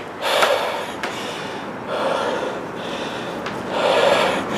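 A man breathing close to the microphone, three long, noisy breaths about two seconds apart.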